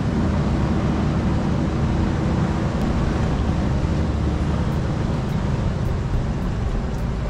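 Jeep driving slowly along a rough sandy dirt trail: a steady rumble of engine and tyres.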